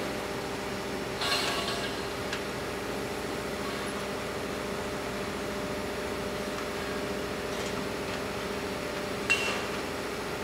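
Heavy machinery running with a steady, even-pitched drone, and two sharp metal clinks that ring briefly, one about a second in and a louder one near the end.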